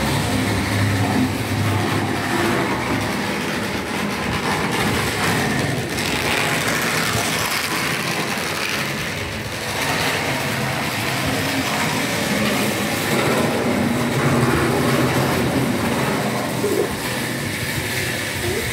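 Model train running on the layout's track: a steady mechanical rumble of motor and wheels on rail.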